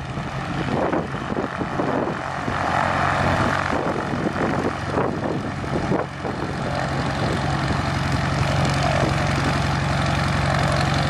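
Small propeller airplane's piston engine running close by, a steady drone that firms up and gets a little louder about halfway through as the plane comes in, with wind gusting on the microphone in the first half.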